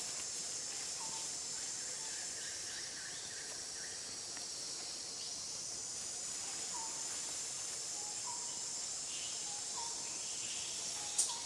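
Steady high-pitched drone of an insect chorus, with faint short chirps repeating every second or so and a sharp click near the end.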